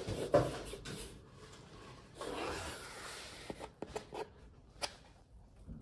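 Hand handling cardboard boxes: soft rubbing, a brief scrape about two seconds in, and a few light clicks or taps.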